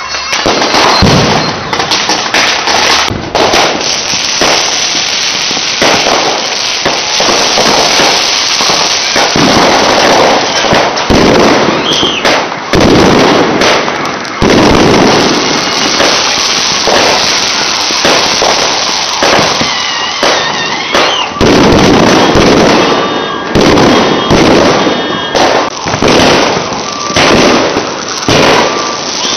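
A loud, dense barrage of fireworks going off close by: continuous bangs and crackling, with a few short whistles.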